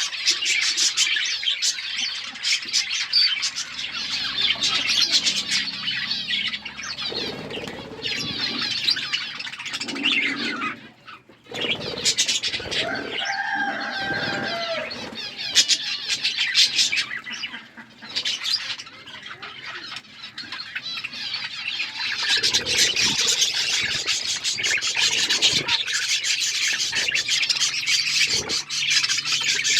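A flock of budgerigars chattering and chirping, a dense, continuous mix of many short high notes from many birds at once, briefly thinning out about eleven seconds in.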